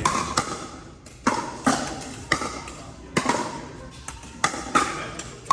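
Pickleball paddles striking a hard plastic pickleball in a rally: a string of sharp, hollow pops at uneven intervals, roughly every half second to a second, each with a short echo.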